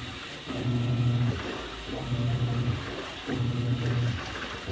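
Panasonic 12 kg washing machine in its wash agitation. The motor hums in short strokes of under a second with brief pauses between, about three strokes, churning the load and water.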